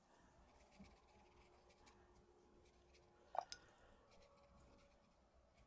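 Near silence, with faint scratchy sounds of a paintbrush stroking watercolour paper and one short click about three and a half seconds in.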